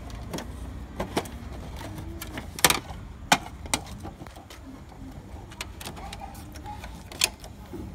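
A handful of sharp clicks and knocks from a hand working the plastic parts of an HP Color LaserJet Pro M177fw printer, the loudest about two and a half seconds in, over a steady low hum.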